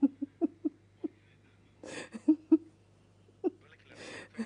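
A woman's voice in short, scattered sounds with gaps between them, over a steady low hum.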